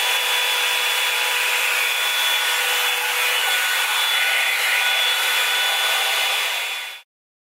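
Revlon One Step hot-air dryer brush running steadily: a loud rush of air with a faint steady whine on top. It cuts off suddenly near the end.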